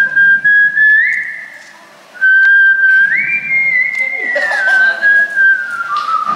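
A person whistling a slow tune in long held notes that step up and down in pitch. The whistling breaks off about a second and a half in and starts again half a second later.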